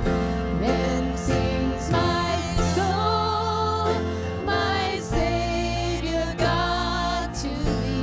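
Christian worship music: a sung melody over sustained instrumental chords.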